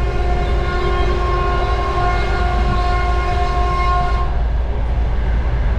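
A locomotive horn sounds one long steady note and cuts off about four seconds in, over the steady low rumble of the train running.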